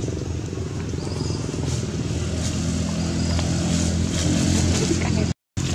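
A steady low engine hum, like a motor vehicle running close by, growing louder toward the end and then cutting off abruptly for a moment near the end.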